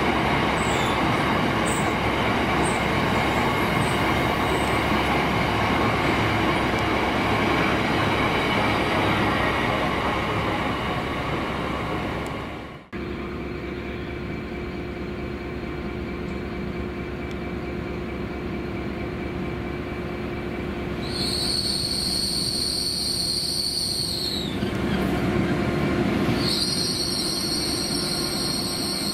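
A freight train hauled by a Class 66 diesel rolling past steadily, cut off abruptly about a third of the way in. Then a GWR Intercity Express Train (Hitachi IET) arrives, rumbling with high-pitched wheel and brake squeal in two spells, the second lasting to the end, as it slows into the platform.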